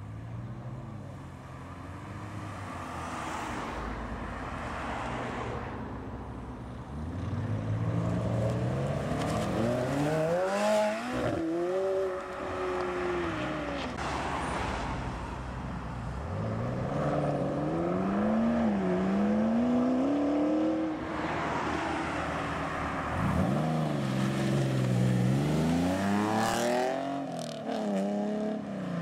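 Performance car engines accelerating away one after another, three main runs in turn. Each run climbs steeply in pitch, dips at a gear change and climbs again before fading.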